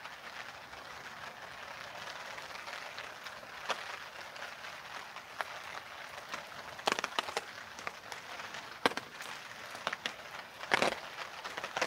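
Steady rain falling, with sharp taps of heavier drops landing scattered through it; the loudest taps come about seven, nine and eleven seconds in.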